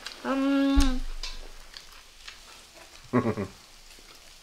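Food sizzling faintly on a charcoal grill. Over it comes a brief held hummed note lasting about half a second, cut off by a low thump, and a short voiced grunt about three seconds in.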